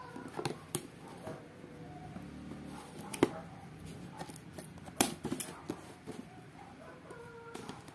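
Scissors slitting the tape along the top edge of a cardboard box, with a run of sharp clicks and the cardboard being handled. The two loudest clicks come about three and five seconds in.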